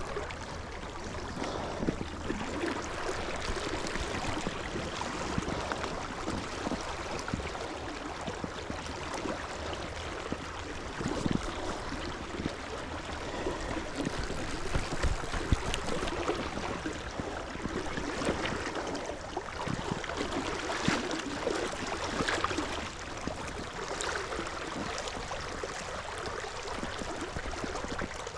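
Flowing river water: a steady rush with many small, irregular splashes.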